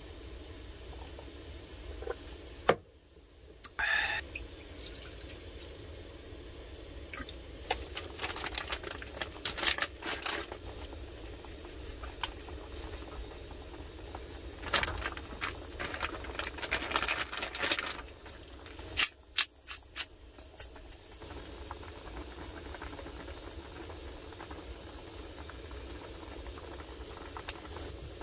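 Broth simmering in a cast-iron skillet on a portable butane stove. Scattered clicks and clatters of utensils as ingredients are added, most of them in the middle of the stretch.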